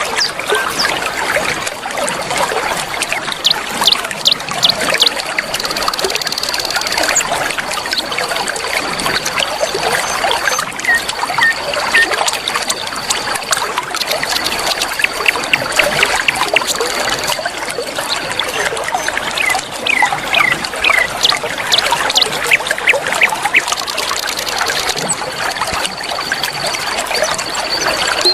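River water trickling and splashing steadily, with birds chirping in many short high notes over it and a thin steady high tone running through much of it.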